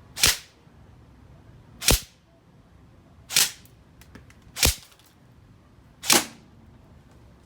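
Airsoft Mk18 rifle fired in semi-auto, five single sharp shots about a second and a half apart.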